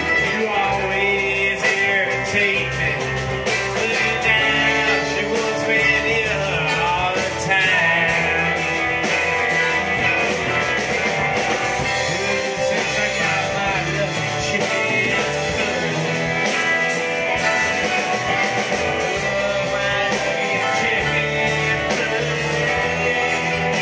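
Live rock and roll band playing an instrumental stretch: several electric guitars over a drum kit, steady and loud.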